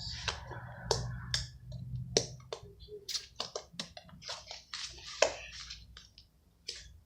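Slime being squeezed and worked by hand, giving a run of irregular sticky clicks and small pops.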